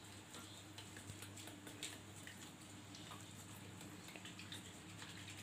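Metal spoon stirring sugar water in a small steel bowl, giving faint, irregular light clicks and scrapes, over a low steady hum.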